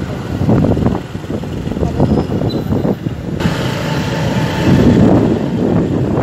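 Wind buffeting the microphone on a moving motorcycle, over the rumble of the ride and the road. Just past halfway it turns brighter and hissier.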